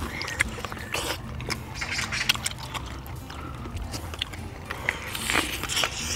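Close-up mukbang eating sounds: chewing and lip smacking on shrimp and shellfish in spicy sauce, many quick wet clicks, with a slurp from a shell about five seconds in.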